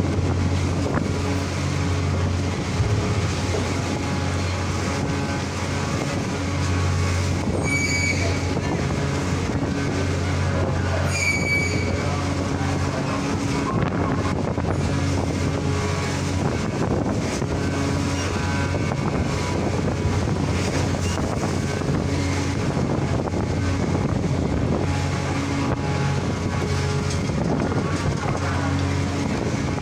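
Steady low drone of a ferry's diesel engines heard from on deck, with wind and water noise over it. Two short, high whistle-like tones sound about eight and eleven seconds in.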